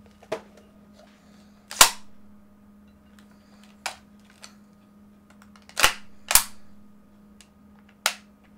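Sharp metallic clacks from a KWC Mini UZI CO2 BB submachine gun being handled and loaded: four loud clacks and a few lighter clicks, two of the loud ones close together.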